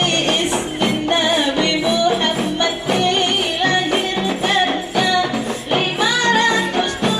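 Rebana ensemble music: frame drums beat a steady rhythm under a bending melodic line.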